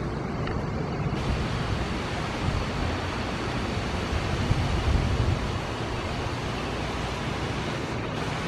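Thunderstorm wind blowing hard: a steady rushing noise with gusts rumbling on the microphone.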